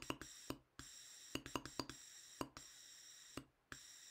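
Soft tongued "t" articulations on a stream of breath, each a short click as the tongue closes and releases the air, spaced out at about two a second: slow tonguing demonstrated without an instrument.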